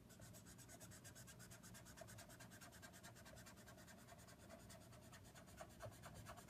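Faint, soft scratching of a Copic alcohol marker's brush nib being stroked back and forth over cardstock, laying down colour.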